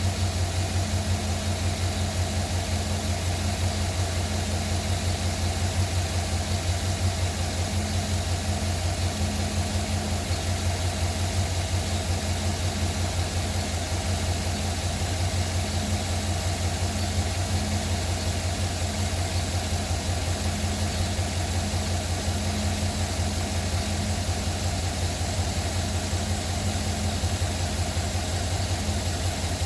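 2009 Chevrolet Silverado engine idling steadily after a cold start, with the knock that the owner reports coming from the engine.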